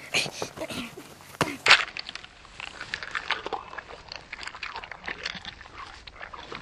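A boy's strained vocal cries during a scuffle, with a few sharp knocks. From about two seconds in comes dense, irregular crunching and crackling as a green-skinned fruit's rind is broken open and its stringy flesh torn apart by hand.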